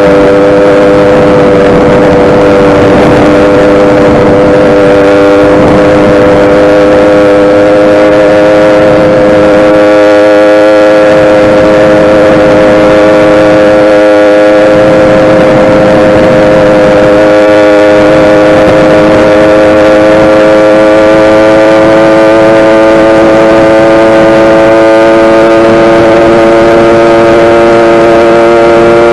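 YD100 single-cylinder two-stroke motorized bicycle engine running at steady high revs under way, its pitch holding even and creeping slightly higher near the end.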